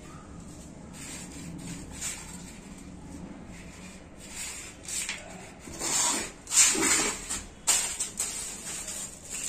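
Hands pressing and rustling loose potting soil around a rose plant in a plastic pot. Louder irregular rustles and scrapes come in the second half.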